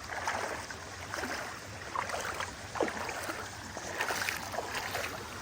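Shallow creek water running over rocks, with small irregular splashes and gurgles.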